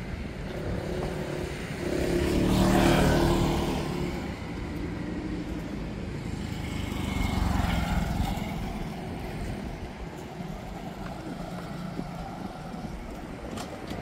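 Two motor vehicles drive past one after the other, each swelling and fading. The first, about three seconds in, is the louder; the second passes a few seconds later. Steady traffic noise runs underneath.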